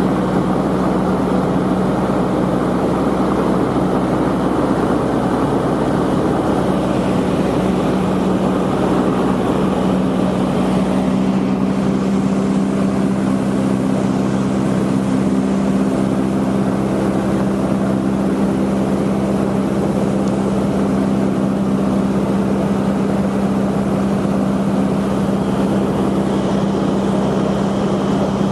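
Cessna 150's Continental O-200 four-cylinder engine and propeller droning steadily in flight, with a slight change in note about eleven seconds in.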